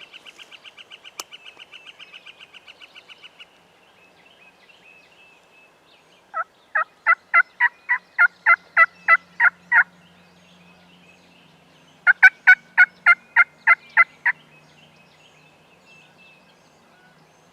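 Turkey yelping: two loud runs of about a dozen evenly spaced yelps each, about three a second, with a short pause between them. A fainter, faster run of notes comes first.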